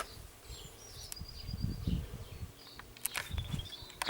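Birds chirping faintly in short trills, with two low rumbles and a sharp click about three seconds in.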